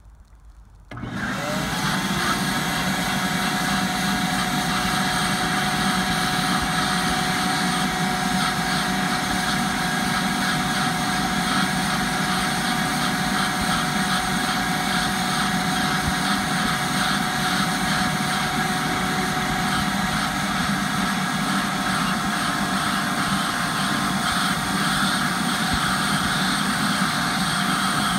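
Ridgid 4-gallon wet/dry shop vac switched on about a second in, its motor whining up to speed and then running steadily, pulling on a clogged air-conditioner condensate drain line while a cordless drill turns the drain-snake reel. One of the whine tones drops out about two-thirds of the way through.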